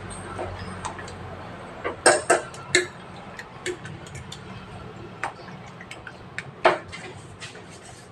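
Metal fork beating eggs in a ceramic bowl: irregular light clicks and taps of the fork against the bowl, with a few louder clinks about two seconds in and again near seven seconds.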